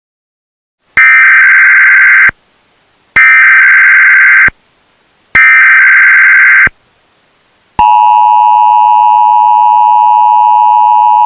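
US Emergency Alert System broadcast tones: three loud bursts of buzzing digital header data, each over a second long with a short gap between them, then the steady two-tone attention signal that comes in about three-quarters of the way through and holds.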